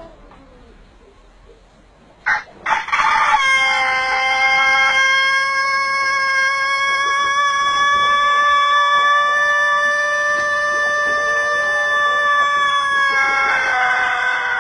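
Rooster crowing: two short opening notes, then one very long, steady held crow of about ten seconds that drops in pitch and turns rough near the end.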